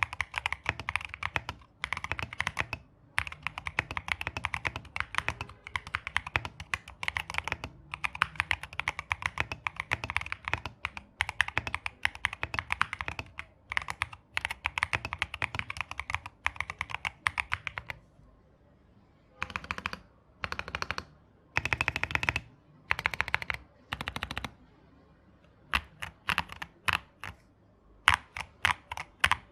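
Mechanical keyboard with lubed Qwertykop Musetsu tactile switches in a wooden 65% case with a polycarbonate plate, typed on fast and continuously for about eighteen seconds. After a short pause come a few quick bursts of keystrokes, then slower, separate key presses near the end.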